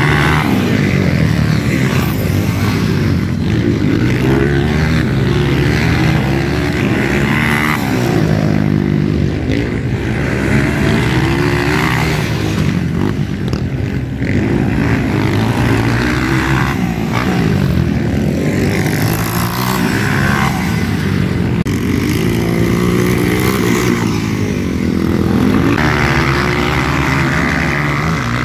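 Several motocross dirt bikes racing, their engines revving up and down as the riders work the throttle through the turns. The rising and falling engine notes overlap.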